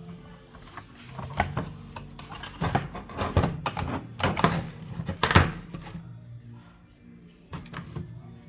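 Clicks and knocks of a small radio's casing and parts being handled and pried apart, with a cluster of sharper knocks in the middle and two more near the end, over a steady low hum.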